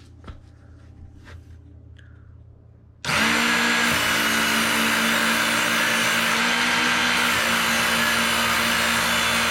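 Electric belt knife sharpener switched on about three seconds in, its motor and abrasive belt then running steadily with a constant hum and a hiss. A few light clicks come before it starts.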